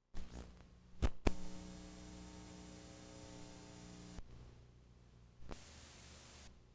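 Faint electrical mains hum with many overtones from a tape playback, preceded by a sharp click and two loud pops about a second in. The hum stops about four seconds in, and a brief hiss follows near the end.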